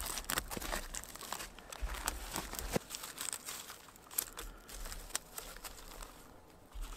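Thin dry wood shavings crinkling and crackling as gloved hands push them into the split centre of a Swedish torch log, with many irregular small snaps and clicks.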